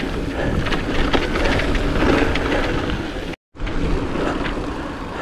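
Mountain bike riding over rough trail, heard from a camera on the bike or rider: a steady rumble of tyres and wind with many small rattles and clicks. The sound cuts out completely for a moment a little over three seconds in.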